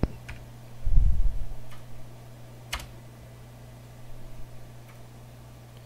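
A few separate computer keyboard keystrokes, single sharp clicks spaced well apart, as a number is entered at a prompt. There is a low thump about a second in, over a steady low hum.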